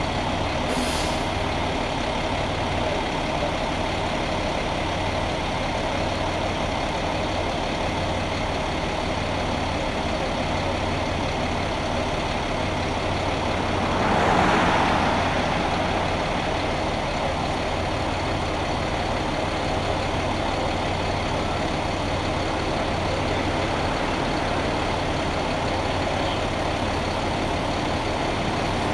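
Fire rescue truck's engine idling steadily with a constant low hum, and a short swell of rushing noise about halfway through.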